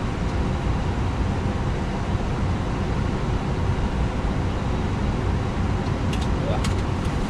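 Steady rushing cockpit noise of a Boeing 767-300 rolling slowly up to its gate, with engines at idle and air conditioning running, and a few light clicks near the end.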